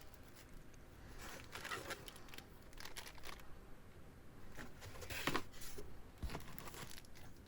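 Faint rustling of packaging and small parts being handled while accessories are unpacked from a box, with a sharper knock about five seconds in.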